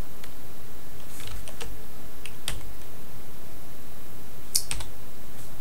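Computer keyboard keystrokes: scattered clicks in small groups, the loudest run near the end, over a steady background hiss.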